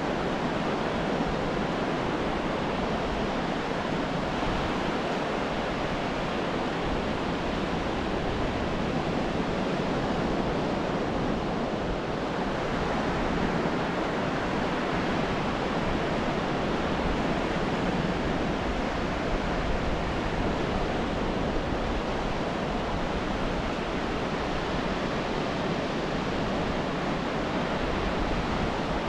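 Surf washing onto a sandy beach, a steady rush of waves with no single break standing out.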